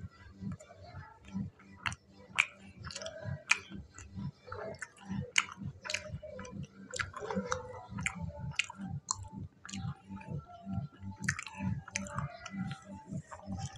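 A person chewing fried pakoras close to a clip-on microphone. The chewing keeps a steady rhythm of about two to three chews a second, with many small wet mouth clicks.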